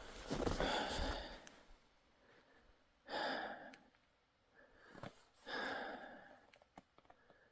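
A person breathing heavily, with long audible exhalations or sighs about three seconds in and again around five to six seconds, after a short burst of noise at the start.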